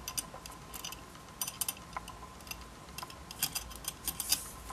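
Small metal strap fittings and the leather strap clicking and clinking against each other and the camera as the hand strap is threaded through its strap holder: scattered light ticks, a few in quick clusters.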